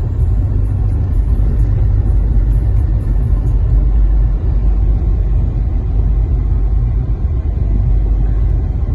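Car driving steadily at speed, heard from inside the cabin: a loud, even low rumble of tyre and engine noise.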